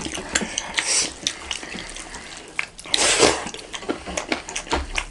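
Close-up wet eating sounds: fingers squishing and mixing rice and dal on metal plates, with lip smacks and chewing. These make many small clicks, with one louder, longer wet sound about three seconds in.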